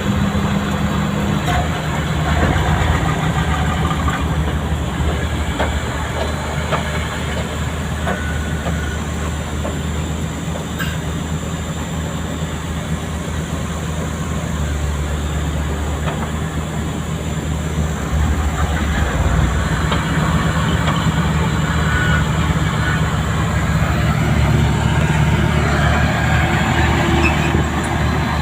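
Heavy diesel earthmoving machinery (dump trucks and bulldozers) running steadily with a deep engine note and occasional short knocks, getting a little louder in the second half.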